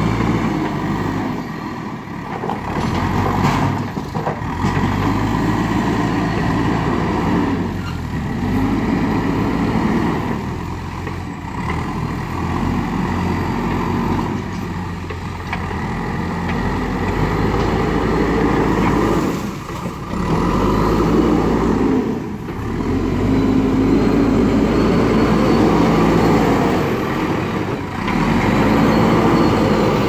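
JCB backhoe loader's diesel engine working under load, revving up and down every few seconds as the machine drives and moves its front loader bucket.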